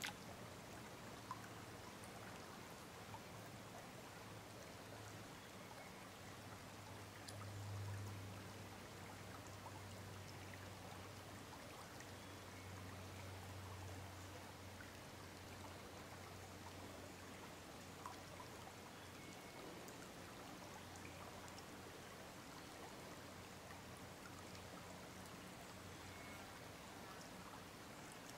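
Faint, steady running water of a shallow gravel-bed stream, with a low hum underneath that swells briefly about eight seconds in.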